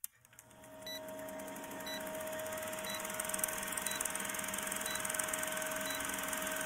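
Old film-projector countdown sound effect: a steady mechanical whirring clatter with a constant hum, and a short high beep about once a second marking each number of the countdown.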